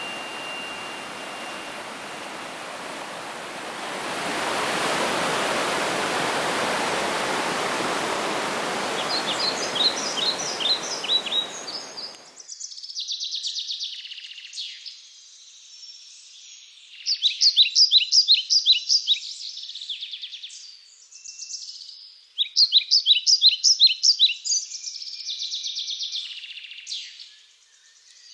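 Steady rushing water that swells a few seconds in, then stops abruptly about twelve seconds in. After that, forest songbirds sing alone in repeated bursts of rapid trilled notes, loudest in two long phrases in the second half.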